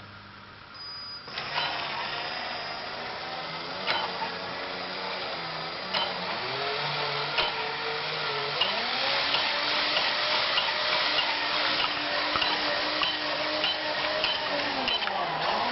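Small electric motor of a homemade coil-winding machine starting up about a second in and running, its pitch wavering and shifting as the speed changes. Regular clicks sound through it, spaced about two seconds apart at first and coming faster later on.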